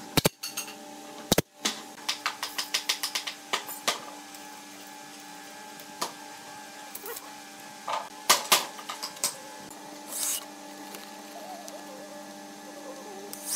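Pneumatic nail gun firing sharply into the corner joint of a wooden frame twice near the start, followed by scattered clicks and knocks of timber and hand tools being handled, over a steady hum.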